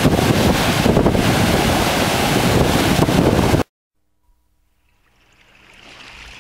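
Heavy surf breaking on a rocky shore, with strong wind buffeting the microphone. It cuts off abruptly a little past halfway, leaving near silence that gives way to a faint, slowly rising hiss.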